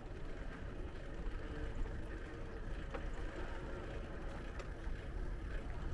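Street ambience from a moving bicycle: a steady low rumble of wind and road noise on the microphone, with faint voices of people in the background and a few light clicks.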